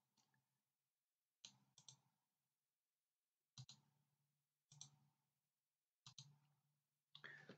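Near silence broken by a few faint, scattered computer mouse clicks.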